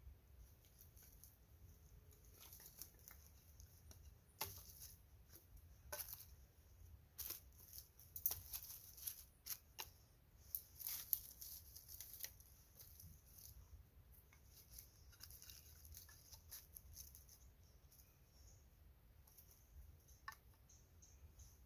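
Faint, scattered wooden clicks and rustles of split kindling sticks being handled and laid onto a pile of firewood, thickest in the middle of the stretch.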